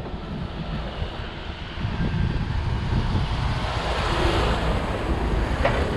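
Wind buffeting the microphone of a camera on a moving bicycle, over a steady outdoor rush that gets louder about two seconds in and swells again around four seconds.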